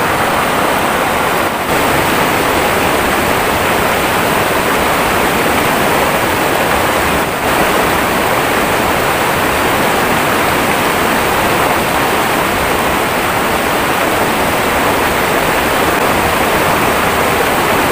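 River water rushing loudly and steadily over rocks in a small cascade of rapids.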